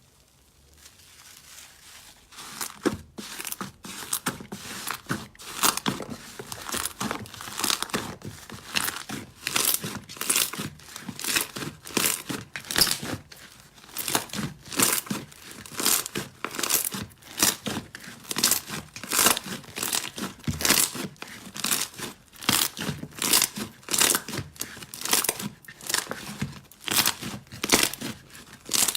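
Slime being squeezed and pressed by hand, about two squishes a second. The squishes start quietly and settle into a steady rhythm a couple of seconds in.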